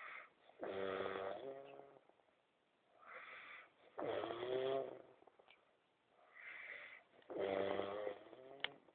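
A man snoring in his sleep: three breath cycles about three seconds apart, each a short breathy hiss followed by a louder, pitched snore.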